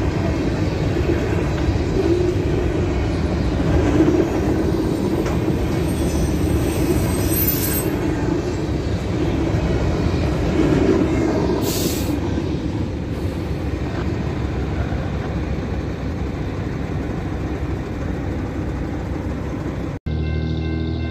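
Freight train cars rolling past with a steady rumble of wheels on rail. Near the end the sound cuts off abruptly and music with sustained notes begins.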